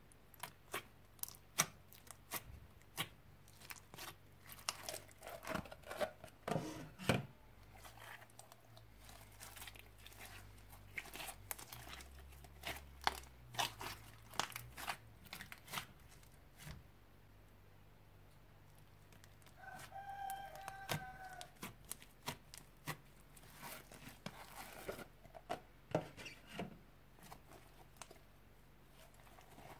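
Old slime being mixed and kneaded by hand, making irregular sticky pops and clicks. A short squeak comes about twenty seconds in.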